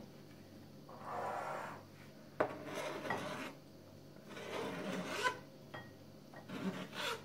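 Kitchen knife blade scraping across a plastic cutting board, sweeping sliced banana into a bowl: four separate scraping strokes, each under about a second, with a sharp click about two and a half seconds in.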